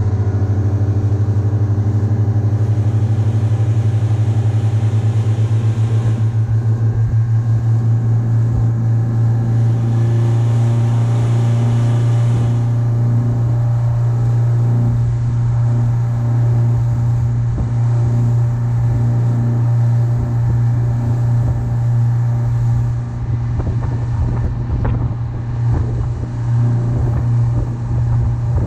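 Twin Yamaha 150 hp four-stroke outboard motors, each a four-cylinder, running together at cruising speed with a loud, steady drone, over the rush of the wake and wind. From about two-thirds of the way through, the sound turns less even, with irregular low thumps.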